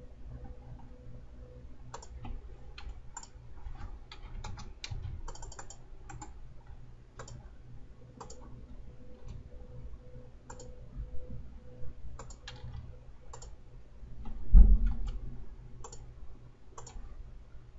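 Irregular clicking of a computer mouse, with perhaps a few key presses, over a steady low hum. A single dull low thump about three-quarters of the way through is the loudest sound.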